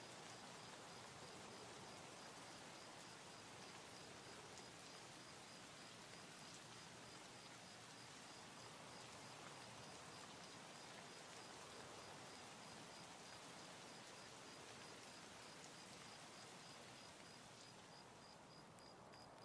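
Near silence: a steady faint hiss of room tone.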